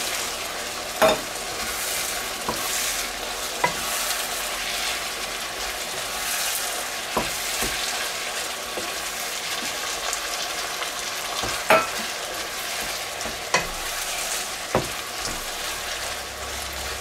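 Sliced chicken and mushrooms sizzling in a frying pan, stirred with a wooden spatula that knocks against the pan now and then.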